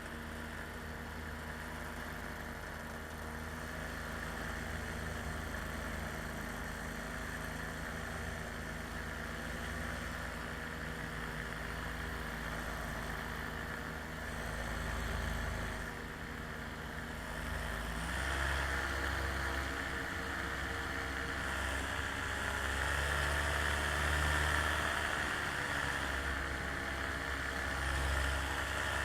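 An engine running steadily through a flight, its note shifting upward and getting somewhat louder about two-thirds of the way in, over a low rumble.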